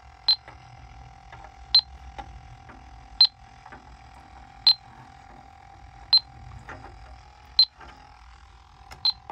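Elitech electronic refrigerant leak detector beeping: seven short, high beeps about every second and a half over a faint steady hum. This slow, even rate is the detector's baseline, meaning no refrigerant is being sensed at the probe.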